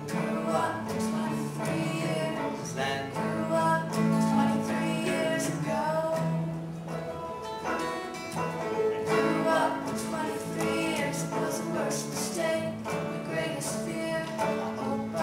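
Acoustic guitar strummed and banjo picked together in a live folk song, with singing over them.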